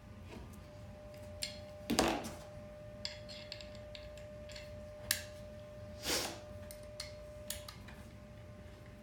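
Hand-tool assembly noises: a hex key and small stainless steel socket head cap screws clicking and scraping as the screws are threaded in and tightened. The loudest are two short scrapes about two and six seconds in and a sharp click about five seconds in, over a faint steady hum.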